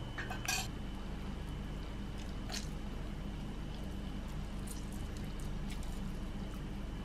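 Lime half squeezed by hand over a clay mortar of pounded chillies: short squishy spurts of juice, the loudest about half a second in and another about two and a half seconds in, with fainter ones later, over a steady low hum.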